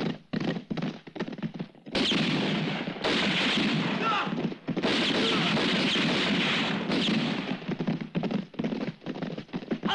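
Film soundtrack of a band of horsemen riding hard: hoofbeats clatter on dry ground, then about five seconds of dense rapid gunfire mixed with men's shouts, briefly broken once, before the hoofbeats return near the end.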